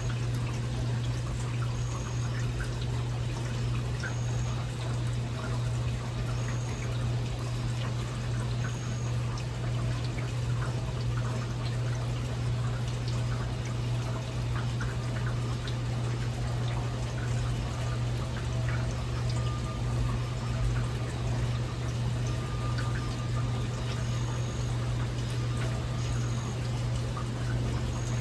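Steady heavy rain falling, with water pouring and dripping, without thunder. A faint short high chirp repeats about every two seconds.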